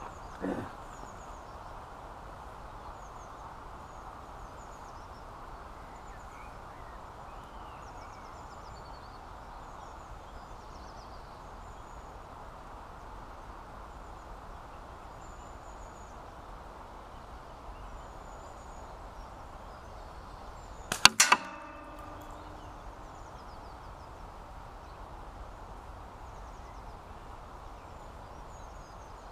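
A catapult shot hits a metal disc target and knocks it off its post: a quick cluster of two or three sharp clanks with brief ringing about two-thirds of the way through. Under it, a steady outdoor hiss and faint bird chirps.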